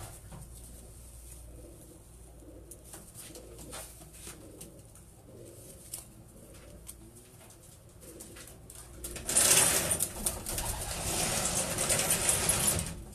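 Racing pigeons cooing softly in a loft, with scattered small clicks. About nine seconds in, a loud rustling noise lasts for three to four seconds and drowns out the coos.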